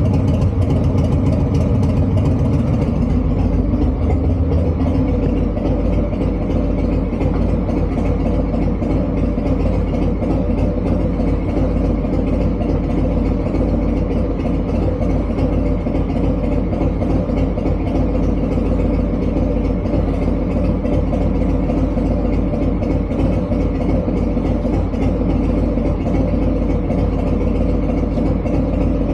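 Engine idling steadily, with a low rumble that eases slightly about three to four seconds in.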